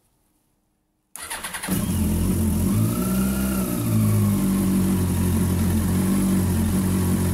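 1998 Yamaha R1's inline-four engine cold-started: about a second in it cranks on the electric starter, catches within half a second and settles into a steady idle, the revs lifting briefly a couple of times. It is a short run on freshly filled coolant, radiator cap off, to push air out of the cooling system.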